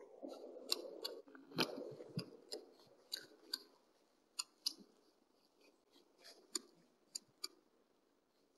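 Red foxes crunching and chewing at bait: a run of sharp crunching clicks, dense in the first half and thinning out towards the end, over a muffled low rumble in the first couple of seconds.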